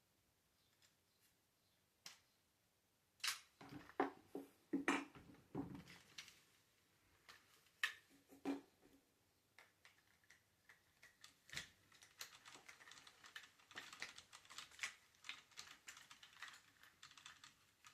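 Light clicks and taps of small hard plastic model parts being handled and fitted, with a few sharper knocks a few seconds in and a dense run of fine ticking in the second half.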